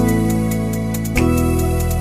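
Background music: keyboard chords that change about once a second, over a light, steady ticking beat.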